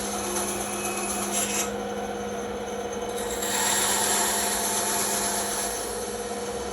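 Bandsaw running and cutting through wood: a steady motor hum under the hiss of the blade in the cut. The cutting noise changes as the piece is fed and turned, and gets louder about halfway through.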